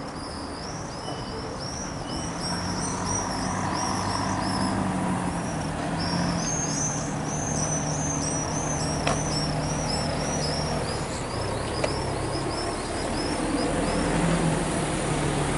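A small bird sings a long series of quick, arched, high chirps, several a second, with a short break partway through, over a steady hum of road traffic. Two sharp clicks fall in the second half.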